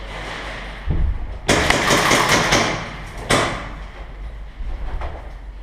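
Airsoft gunfire: a thud about a second in, then a loud rattling burst lasting about a second, and another sharp burst a couple of seconds later.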